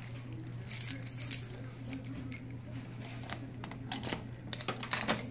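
Light clicks and metallic clinks of small objects being handled, over a steady low hum in the room and faint voices.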